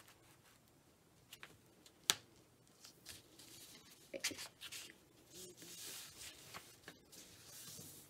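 A sheet of paper being folded in half and smoothed flat by hand: faint rustling and sliding with scattered crisp clicks, the sharpest about two seconds in.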